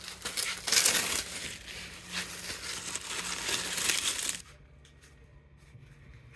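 Packing material being crumpled and handled, a dense crackling rustle with many small crackles that stops about four and a half seconds in.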